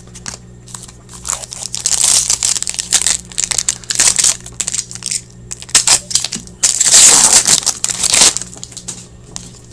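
Hockey card pack wrapper crinkling and crumpling as packs of 15-16 Upper Deck Portfolio cards are handled and torn into, in irregular bursts with the loudest stretch about seven to eight seconds in. A steady low hum runs underneath.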